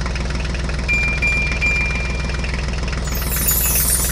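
Tractor engine sound running steadily with an even, rapid chug. A thin, high steady tone sounds from about a second in for a second and a half, and a high hiss comes in near the end.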